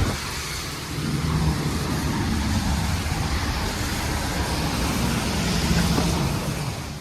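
Steady engine-like rumble with a hiss of noise over it.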